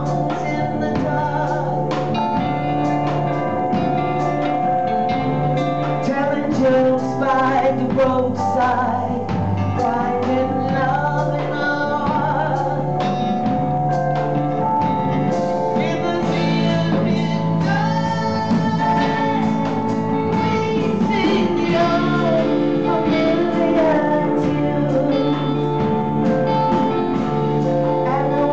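Live band music: a woman singing over keyboard, electric guitars and a drum kit, with steady drum hits.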